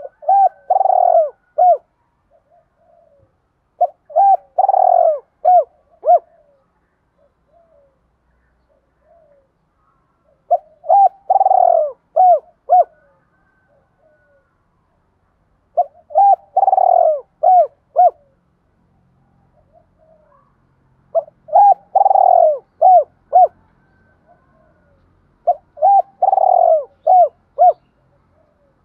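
Spotted dove cooing: six repeated phrases about five seconds apart, each a run of short coos around one longer, louder coo.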